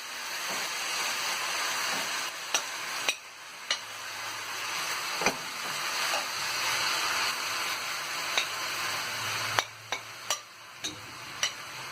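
Sliced potatoes, chopped onion and poblano pepper sizzling as they fry in olive oil in a pan. A few sharp clicks of a utensil against the pan are heard along the way.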